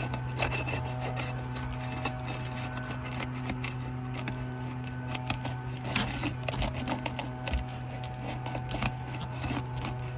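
A pry tool scraping and working under asphalt roof shingles in irregular rubs, scrapes and clicks. A steady low hum runs underneath.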